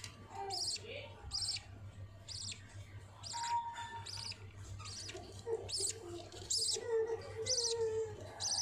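Budgerigars giving short, high chirps over and over, about two a second, with a steady low hum underneath.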